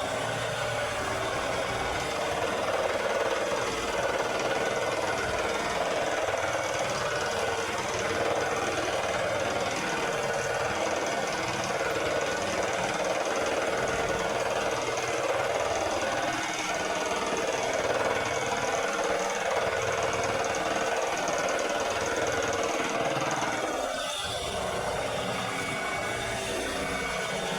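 Lawn mower engine running steadily, dipping briefly near the end.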